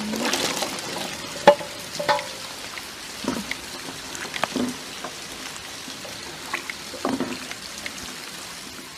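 Metal kitchenware knocking and clinking several times over a steady hiss of rain, the loudest clink about one and a half seconds in, ringing briefly.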